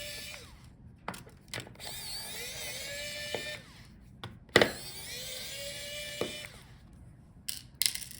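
Electric precision screwdriver whining in short runs of about a second and a half as it backs out the small screws holding a laptop touchpad, its pitch rising as each run starts. Sharp clicks and taps of the bit and screws fall between the runs, the loudest about halfway through.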